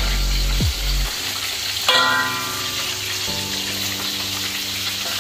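Chicken pieces frying in hot oil in a wok, a steady sizzle while they are turned, with one short ringing clink about two seconds in.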